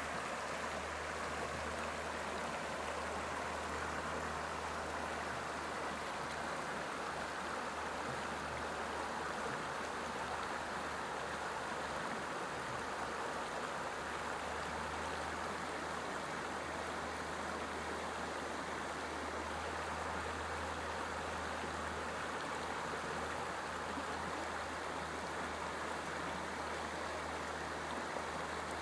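Creek water running over shallow rapids: a steady, even rushing.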